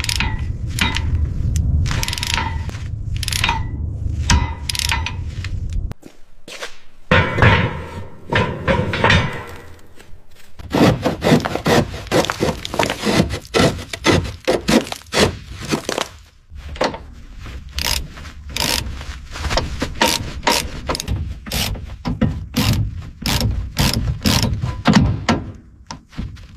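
Workshop sounds of hand tools working on car parts: repeated scraping strokes, then a long run of rapid knocks and clicks.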